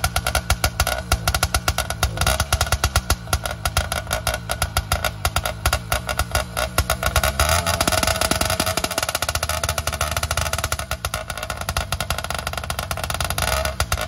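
Motorized bicycle's two-stroke kit engine running very loud, with a rapid, uneven popping from the exhaust. It revs up for a moment about halfway through, then drops back to choppy idle-speed firing.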